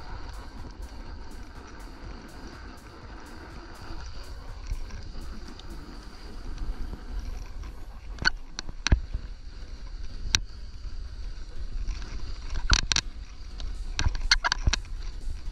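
Snowboard sliding and carving over snow, with wind rumbling on the microphone. From about eight seconds in, sharp click-clack noises come in irregular clusters, several in quick pairs.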